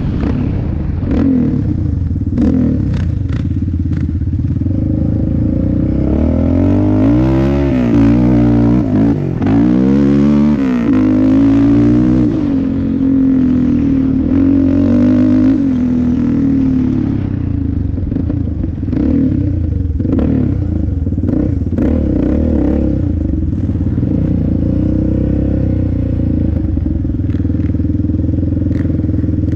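Yamaha Raptor 700R ATV's single-cylinder four-stroke engine being ridden hard, the engine note climbing and dropping several times under throttle, then pulling more steadily. Scattered knocks and rattles from the machine running over rough ground.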